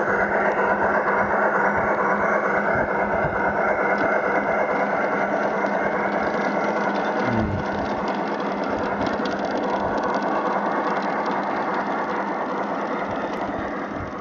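Battery-powered Accucraft K27 model steam locomotive and its freight cars running along garden railway track, the locomotive's on-board Sierra sound unit playing steam sounds over the rattle of wheels on rail. It gets quieter about halfway through as the locomotive moves away and the cars roll past.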